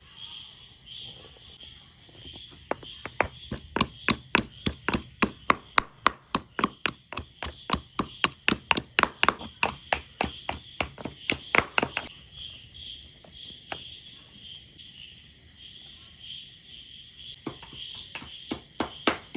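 Rapid, even knocking strokes of food preparation, about four a second, in a long run that stops about two-thirds of the way through and starts again near the end. Crickets chirp steadily behind.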